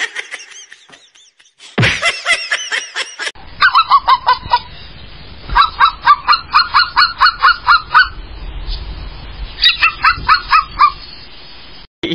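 Cat making rapid honk-like chirping calls, about four a second, in three runs separated by short pauses.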